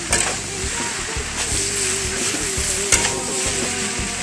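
Mee goreng stir-frying in a large steel wok: a steady sizzle as the noodles are tossed, with a few sharp knocks of the utensil against the wok, the loudest about three seconds in.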